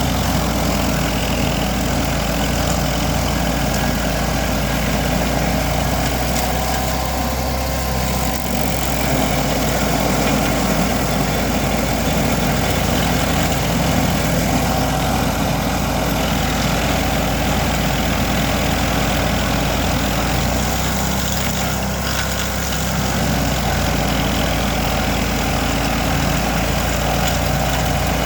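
Vermeer SC382 stump grinder's 37 hp engine running loud and steady, dipping slightly in level a couple of times.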